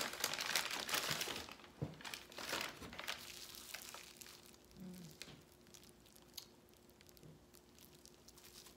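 A crinkly shop bag being opened and a plastic-wrapped item handled. The crinkling is dense and loud for the first three seconds, then thins to scattered, quieter crackles.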